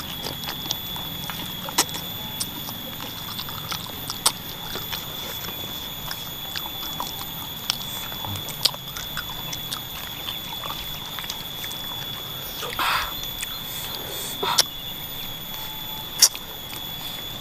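Eating sounds from a bowl of bakso with chicken feet: chewing and slurping with many scattered short clicks, and a few louder short bursts in the last few seconds.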